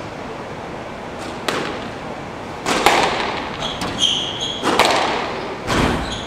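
Squash rally: the ball cracking off rackets and walls in about six sharp hits, each echoing in the court, starting about a second and a half in. Short high squeaks of court shoes on the wooden floor come in the middle of the rally.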